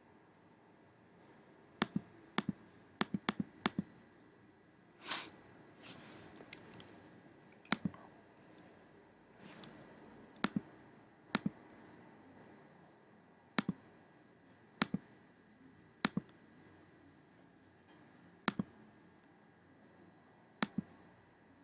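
Computer mouse clicking: about a dozen sharp clicks at irregular intervals, with a quick run of them two to four seconds in. A short rustling hiss comes about five seconds in.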